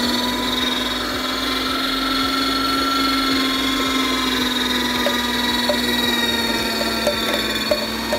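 Masteritsa KEM-03 electric meat grinder running with its juicer attachment while apples are pushed through it: a steady motor hum at one unchanging pitch. A few faint short ticks come in the second half.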